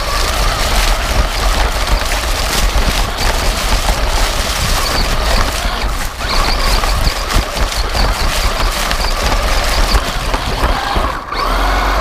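Electric RC monster truck heard from a camera mounted on it, driving fast over grass and fallen leaves. The motor and gears give a steady high whine under a loud rattle of the body and tyres, and the whine rises near the end.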